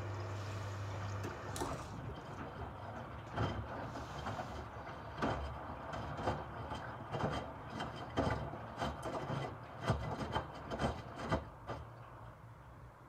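Miele W2573 front-loading washing machine drum tumbling wet microfiber cloths: irregular soft thuds as the cloths fall, with rubbing and swishing against the drum. A steady low hum at the start stops just over a second in, and the tumbling goes quieter near the end as the drum comes to rest.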